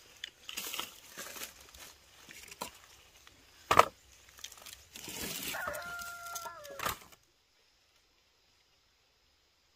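Dry wooden sticks knocking together as they are piled into a woven bamboo basket, with one loud sharp knock about four seconds in. A rooster crows for about two seconds just after, and the sound cuts off abruptly near the end.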